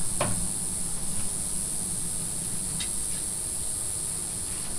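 Steady high-pitched outdoor drone, with a few faint clicks.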